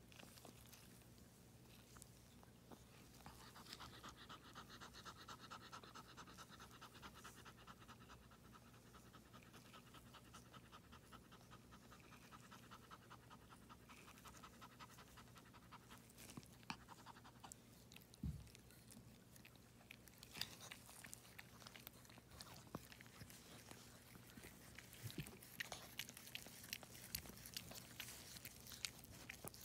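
A mother dog in labour panting fast and faintly, from a few seconds in until about halfway through. A soft low bump follows, then scattered small clicks.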